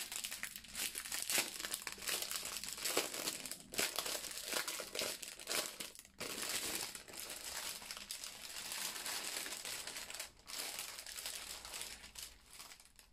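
Clear plastic packaging of diamond-painting drill bags crinkling irregularly as it is opened and the small zip bags of drills are pulled out, with brief lulls about six and ten seconds in.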